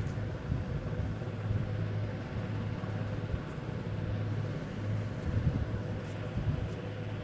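Steady low hum with a background noise haze and no clear events.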